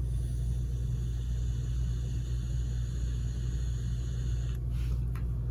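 Steady low hum with no speech, and a couple of faint clicks near the end.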